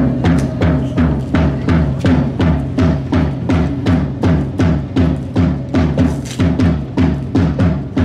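Drums playing a fast, steady beat of evenly spaced strokes with deep low tones.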